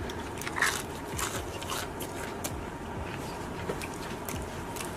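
Close-miked mukbang eating: irregular chewing, with small crunchy clicks and wet mouth smacks every second or so.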